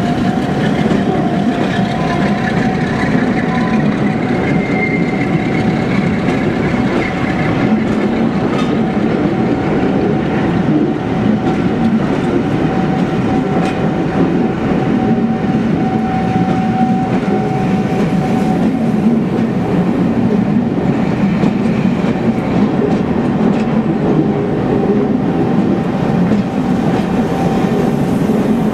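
Train of passenger coaches hauled by Class 47 diesel locomotives rolling past on departure, wheels clattering over the rail joints under a steady rumble. A steady high whine runs over it.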